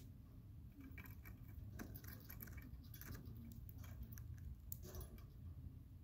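Budgerigar nibbling at a chew toy: faint scattered clicks and small crunches of the beak, bunched between about one and five seconds in, over a low steady hum.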